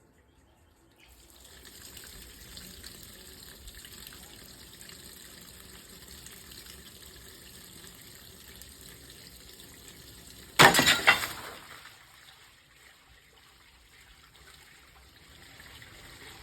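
Water running steadily, as when a toilet is being filled with water. About ten seconds in, a sudden loud noise lasting about a second, with two peaks, cuts in, and then the water sound continues more faintly.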